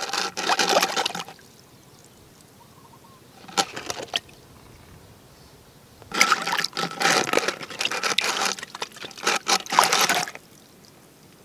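Water splashing in three bursts, a short one at the start, a brief one around three and a half seconds in, and a longer one of about four seconds from around six seconds in: a snakehead fish thrashing inside a plastic-bottle fish trap in shallow muddy water.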